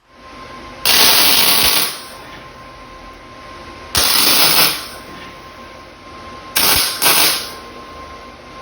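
Wire-feed (MIG) welder laying short tack welds on 16-gauge sheet steel: four crackling bursts, the first about a second long, the last two close together, with a steady hum between them.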